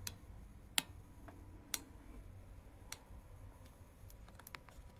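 Handling noise from a phone camera being moved and turned around: a few faint, irregular clicks and taps, with a small cluster of them near the end.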